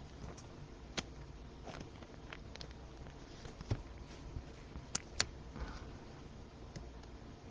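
Faint rustling and light clicks of trading cards and plastic being handled, with a few sharper taps about a second in and twice close together around five seconds in.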